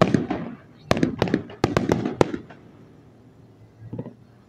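Fireworks going off: sharp bangs and crackling reports, with a quick run of bangs between about one and two and a half seconds in. After that it goes quieter, with a faint pop near the end.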